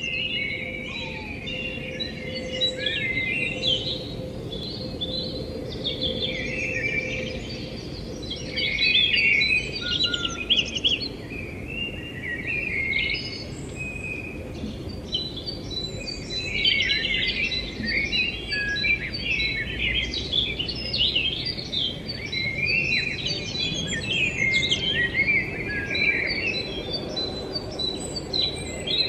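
Many small birds chirping and twittering at once, a busy, continuous chorus of short high calls that thins briefly about halfway through.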